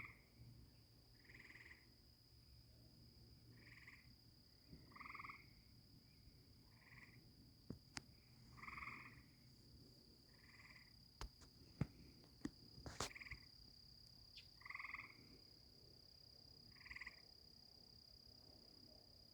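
Faint chorus of tree frogs calling in short trills, one every second or two, over a steady high drone of crickets. A few sharp clicks come about two-thirds of the way through.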